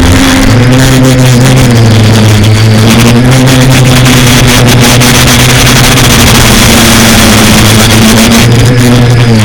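FPV quadcopter's electric motors and propellers running loud and steady, a buzzing hum that wavers slightly in pitch with throttle and dips briefly near the end, under a crackle of clicks.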